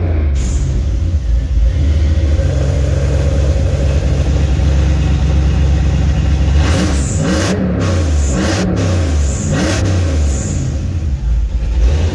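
Car engine running through an exhaust fitted with electric exhaust cutouts, a steady low idle, then several quick rev blips in the second half, each rising and dropping back. This is the first test run of the newly wired cutouts.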